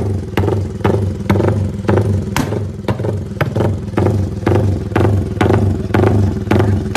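Modified Yamaha Y15ZR motorcycle's single-cylinder four-stroke engine idling through an aftermarket exhaust, with a pulsing beat and sharp clattering clicks about twice a second.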